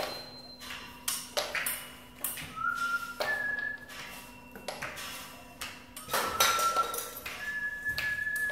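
A pure whistle-like tone plays a two-note figure twice, a short lower note stepping up to a higher held note, the second time held longer. It sounds over scattered sharp taps and crackles like a plastic water bottle being handled.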